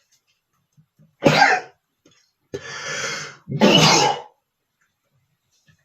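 A man sneezing twice, light, not powerful sneezes, with a noisy breath of about a second just before the second one.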